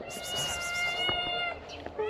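A ginger kitten meowing: one long, high meow held for about a second and a half, then a shorter meow near the end.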